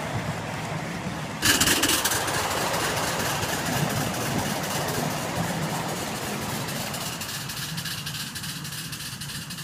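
Ride-on scale model train's passenger cars rolling along the track, wheels rumbling with a dense clatter of clicks. About a second and a half in the sound jumps suddenly louder as the cars pass close over a trestle, then it fades slowly as the train moves away.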